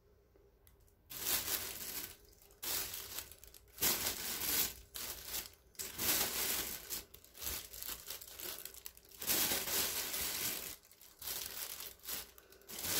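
Potting soil with perlite being scooped from a plastic bag and poured and pressed into a pot around rooted cuttings: rustling and crinkling in irregular bursts that start about a second in.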